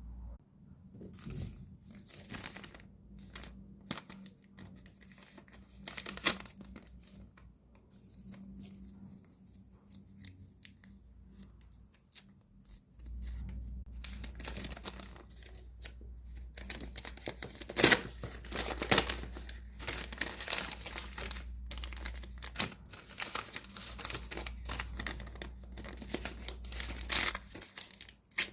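Plastic packaging being crinkled and torn open by hand, in irregular rustles and rips that grow busier and louder in the second half. A low hum sits underneath from about halfway until near the end.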